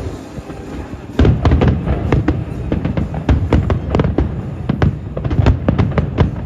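Aerial fireworks exploding in a rapid barrage. About a second in, a dense run of cracks and booms starts, several per second, over the show's music.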